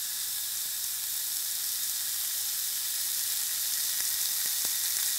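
Minced-beef patty sizzling on a charcoal grill's grate: a steady hiss.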